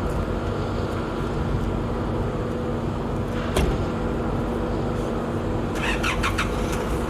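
Unmanned agricultural spraying helicopter running steadily with a constant engine and rotor drone. One sharp click comes about three and a half seconds in, and a short run of clicks comes near the end.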